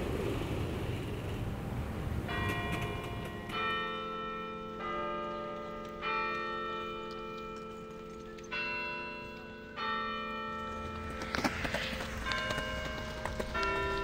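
Tower bells playing a slow tune, one note struck about every second and a quarter, each left to ring and fade, with a short pause midway. A few sharp clicks come in under the bells near the end.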